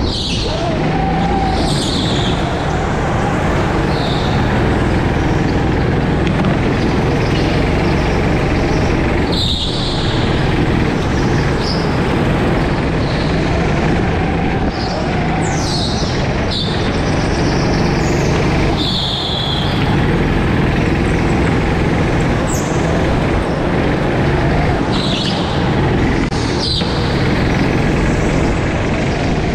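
Go-kart engine running hard and steady, heard from the driver's seat, with short tyre squeals several times through the corners and an occasional knock.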